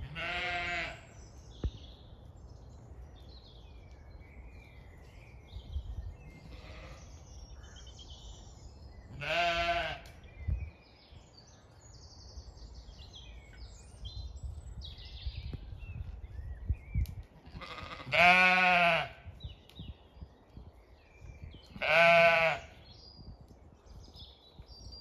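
Zwartbles sheep bleating four times, several seconds apart. Each bleat is a wavering call about a second long, and the last two are the loudest.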